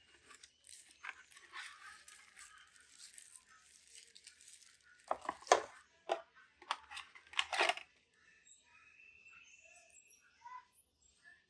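Headphone retail packaging being opened and handled: packaging rustling and tearing for the first few seconds, then a cluster of sharp knocks and scrapes around the middle, then fainter handling.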